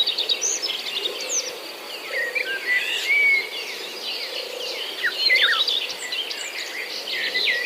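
Several songbirds chirping and singing in quick, overlapping calls, over a steady high insect trill.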